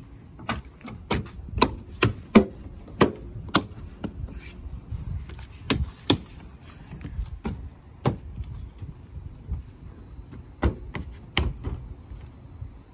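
Plastic clips of a Tesla Model Y's frunk cowl cover panel snapping into place as the panel is pressed down by hand. It is a string of sharp snaps and taps, several in quick succession over the first few seconds, then more spread out.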